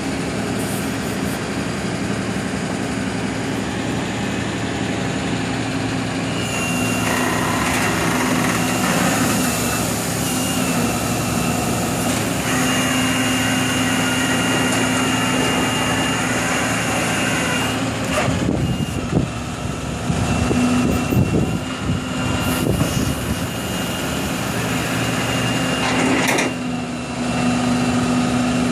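Rollback tow truck's engine running while its hydraulics tilt the flatbed, with a steady whine that comes in and out as the control levers are worked. There is a spell of uneven rattling in the middle.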